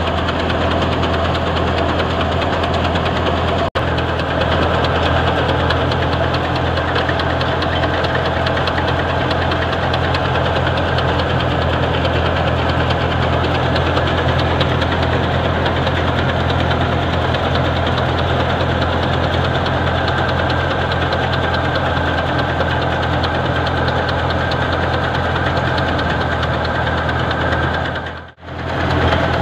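A belt-driven wheat thresher, threshing mustard, running steadily with a low hum under a wide mechanical din. The sound cuts out for an instant twice.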